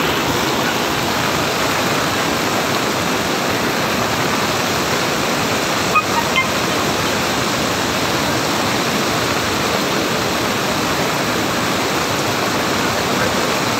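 Steady rush of fast-flowing floodwater pouring across a road.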